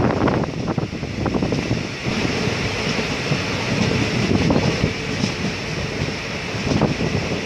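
Moving passenger train heard from on board: a steady running rumble with occasional rattles and clicks, and wind buffeting the microphone.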